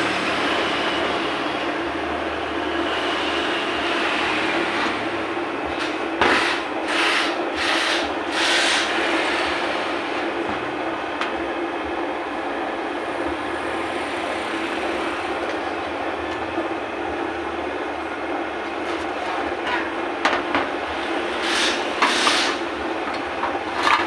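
A steady mechanical drone with a low hum, over which come short metal scrapes and clinks of the cast-iron meat grinder's housing, locking ring and worm screw being handled, twice: once about a quarter of the way in and again near the end.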